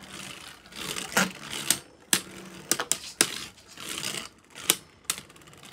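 Beyblade Burst spinning tops clattering in a plastic stadium: sharp clicking hits with short rattling scrapes between them.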